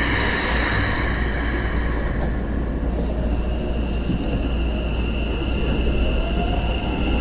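Keikyu N1000 series electric train pulling away from a subway station. A hiss fades over the first few seconds, then a steady high tone from the VVVF inverter sets in. About five seconds in, a rising whine starts as the traction motors begin to move the train, over a low cabin drone.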